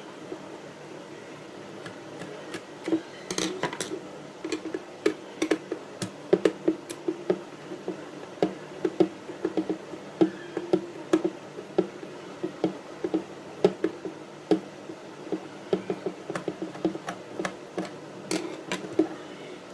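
Rapid, irregular light clicks and knocks of a landline telephone's plastic casing and tools being handled as it is taken apart, starting a few seconds in.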